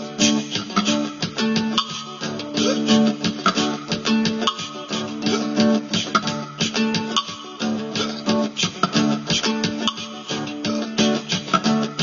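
Looped instrumental music built up in layers on a loop pedal: plucked guitar parts repeat the same short figure over a steady beat.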